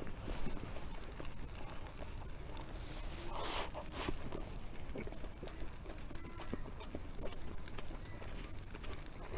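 Scattered small crackles and ticks over a low steady hiss from a campfire cooking grill, with two brief rustling noises about three and a half and four seconds in.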